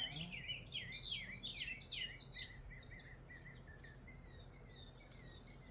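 A songbird chirping: a quick series of short, down-sweeping notes, strongest over the first half, then trailing into a softer run of repeated chirps.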